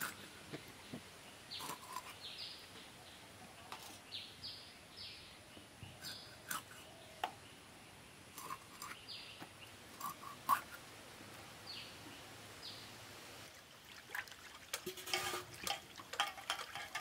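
Fish being cut on a boti blade, with scattered soft clicks and crunches, while small birds give brief high chirps now and then. Near the end, hands splash and swish fish pieces in a metal basin of water.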